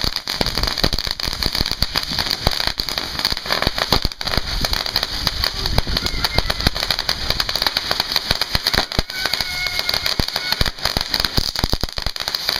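Ground fireworks, spinners and sparking fountains, hissing steadily and crackling with a dense, rapid run of small pops.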